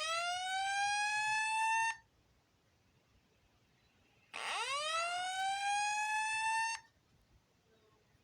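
Fire alarm voice evacuation 'slow whoop' alert tone played through an alarm speaker. It is a rising sweep about two and a half seconds long, heard as one ending about two seconds in and another starting about four and a half seconds in. This is the attention tone that precedes a spoken evacuation message.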